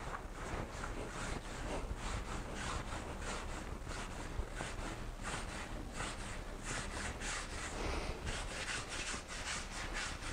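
Hands rolling soft simit dough into a long rope on a marble countertop: faint, repeated rubbing strokes, a few a second, as the palms push the dough back and forth.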